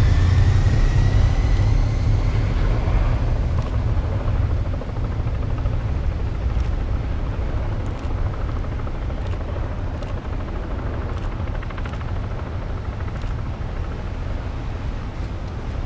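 Police motorcycles and cars of a slow procession passing, a low engine rumble that slowly fades. A high whine, falling slightly in pitch, dies away in the first three seconds.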